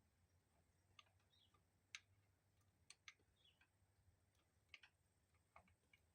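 Near silence broken by about a dozen faint, irregular clicks and light taps, the sharpest about two seconds in.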